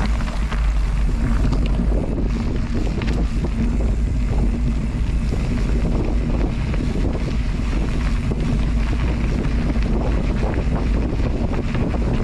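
Steady, loud wind buffeting on a moving camera's microphone, with a constant rushing noise underneath.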